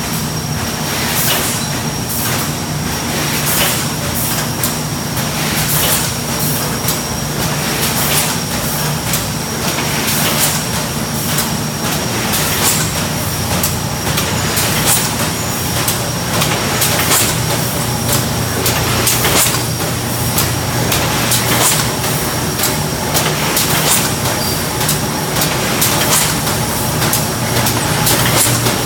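Thermoforming production line running: a steady machine drone with a low hum and a thin high whine, broken by frequent short hisses and clicks.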